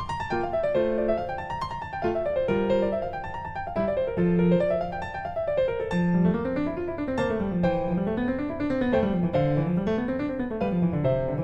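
Background piano music: flowing arpeggios that rise and fall, with a lower line of rolling notes joining about six seconds in.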